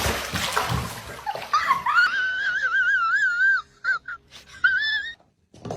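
Splashing or scuffling, then a cat's high, drawn-out wavering cry lasting about two seconds, followed by two short cries, the last one rising.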